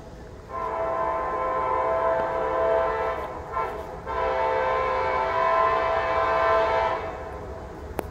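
Arkansas & Missouri Railroad passenger train's multi-note air horn sounding: a long blast, a brief short one, then a second long blast about four seconds in.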